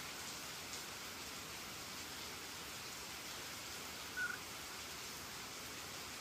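Steady hiss of rain falling, with a single short, high call about four seconds in.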